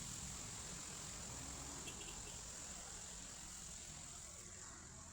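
Steady high-pitched insect chirring, with a faint low rumble underneath.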